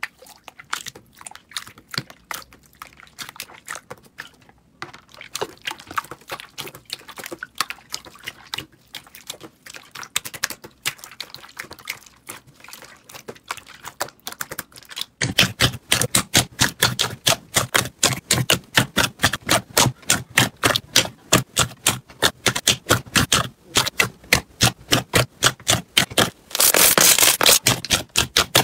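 Hands pressing and squishing slime: a dense run of crackling, popping clicks, getting much louder about halfway through, with a loud flurry near the end.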